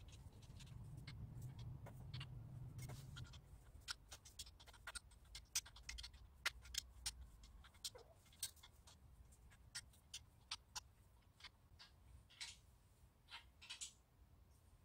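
Faint, irregular light clicks and taps of steel frame parts being handled and fitted at a greenhouse-frame joint, with a low hum over the first three seconds.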